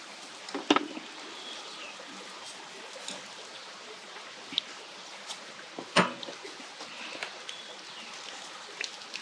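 Pieces of pork sizzling on a charcoal grill, a steady hiss, with scattered sharp clicks and clacks; the loudest click comes about six seconds in.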